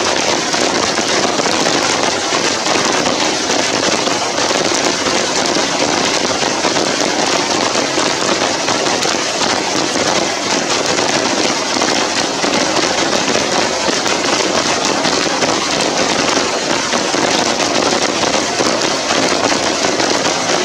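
Steady rain falling, a dense, even crackling hiss with no let-up.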